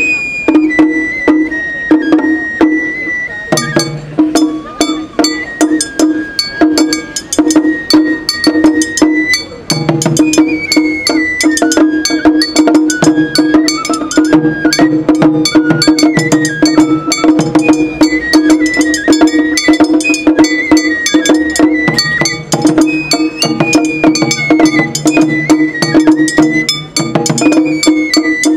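Japanese festival music (matsuri-bayashi): a high bamboo flute playing a wavering melody over drums and quick, bright strokes of a small hand-held gong.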